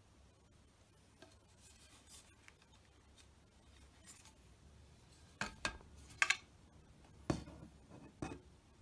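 Handling noise from working on a vinyl-wrapped tennis racket on a cutting mat. Light rubbing comes first, then a handful of short, sharp taps and knocks in the second half.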